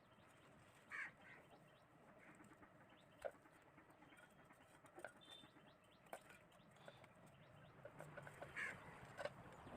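Near silence with a few faint, brief bird calls and scattered small clicks.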